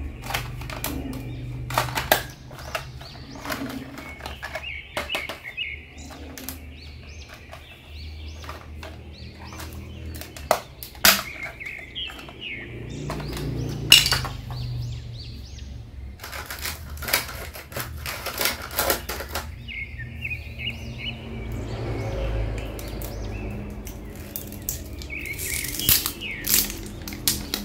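Hands handling a plastic Iron Man toy figure: irregular clicks and knocks of hard plastic as the battery cover is taken off, and near the end the crinkle of plastic wrap being pulled off a pack of batteries.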